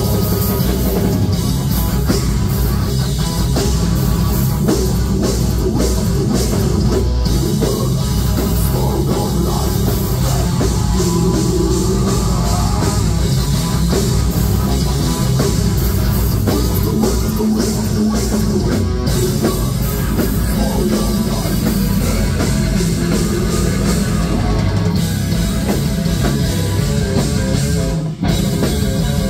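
Metal band playing live: distorted electric guitar and bass over a drum kit, loud and dense, with a short break in the music near the end before it comes back in.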